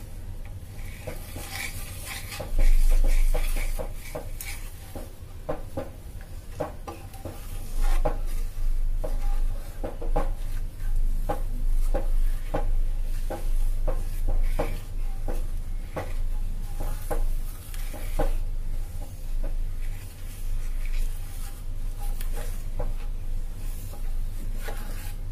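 Wooden spatula stirring hot milk in a nonstick pan while sugar dissolves, with frequent knocks and scrapes of the spatula against the pan. A low steady hum runs underneath, and a louder low rumble lasts about a second near the start.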